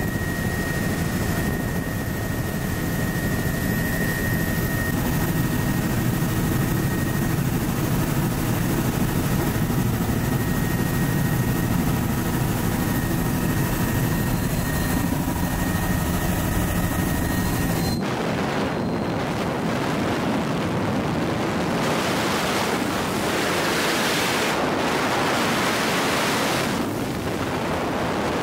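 Helicopter engine and rotor running steadily, a low rumble with a thin high whine above it, heard from on board with the doors off. About two-thirds of the way through it cuts abruptly to an even rushing noise with no engine rumble.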